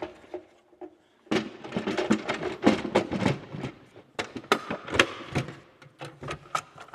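A plastic tray being handled and fitted to the underside of a wall-mounted retractable vacuum reel: many clicks, knocks and scrapes of plastic on plastic, starting about a second in.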